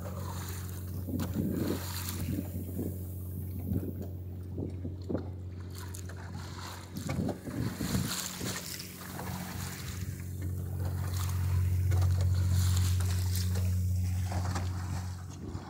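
Water splashing and lapping against the hull of a small sailboat moving slowly in light wind, with wind on the microphone and a steady low hum underneath.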